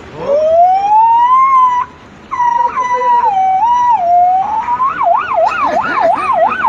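A man imitating an emergency-vehicle siren with his voice: a slow rising wail that levels off, a short break, a few stepped tones, then a fast up-and-down yelp from about five seconds in.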